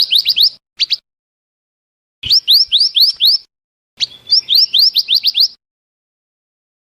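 Lure-call recording of a small songbird, the burung mantenan: bursts of quick, high, upswept chirps, five to seven notes per burst, repeated three times with clean silence between them.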